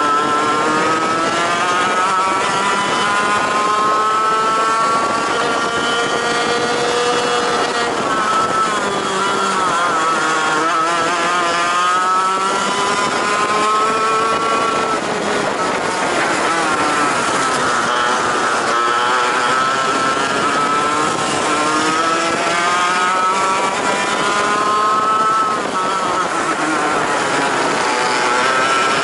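Racing kart engine at race pace, heard onboard: its pitch climbs for several seconds along each straight, then drops sharply as the driver lifts off for a corner, three times over.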